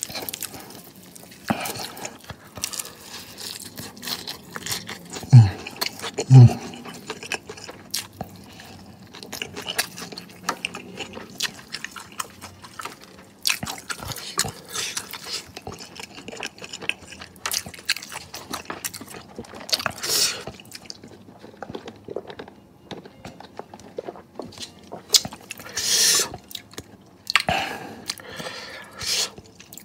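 Close-up chewing and crunching of crispy fried chicken wings: irregular crisp crackles of the coating breaking between the teeth, with the loudest moments near the middle and near the end.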